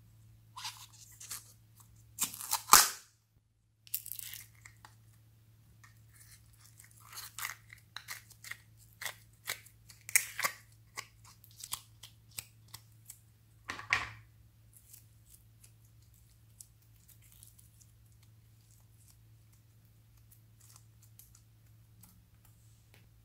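A small plastic tub of jelly slime being opened: a loud tearing, peeling sound about three seconds in, then a run of sharp little clicks and crackles as the tub is handled and the slime pulled out of it.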